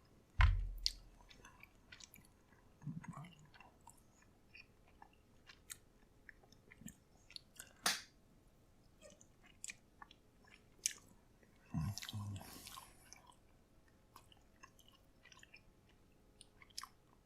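A person chewing a bite of microwaved barbecue pork: wet chewing and mouth noises with scattered small clicks. A low thump comes about half a second in, and a louder stretch of chewing about twelve seconds in.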